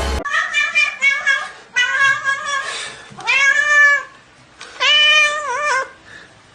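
Domestic cat meowing repeatedly, about five calls with short gaps between them; the two longer calls near the middle and near the end rise and then fall in pitch.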